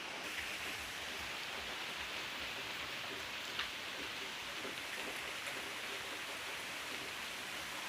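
Steady rain falling, an even hiss, with one faint tap about three and a half seconds in.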